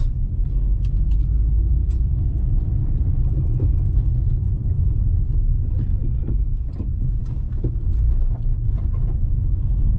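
Steady low rumble of a car being driven along a city avenue, heard from inside the cabin: engine and road noise with a few faint ticks.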